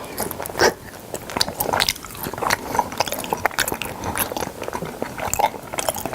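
A person chewing salmon: a quick, irregular run of wet mouth smacks and clicks.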